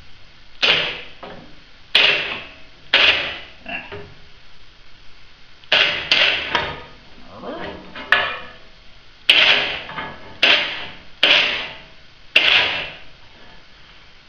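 Sharp metal clanks: about a dozen irregular strikes, each with a short ring, as loose steel linkage parts of a home-built grader are knocked and tapped into position for a test fit.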